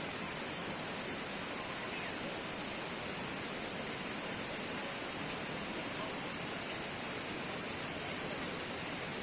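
Steady rush of flowing river water, with a constant high-pitched hiss over it.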